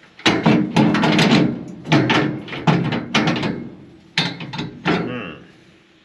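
Metal concave inserts being worked loose and handled inside a combine's threshing area: a run of sharp metal clanks and scrapes with some ringing, dying away near the end.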